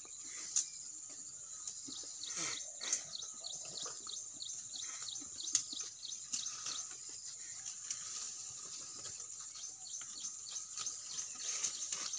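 Birds chirping over a steady high hum, with scattered short clicks and snaps throughout.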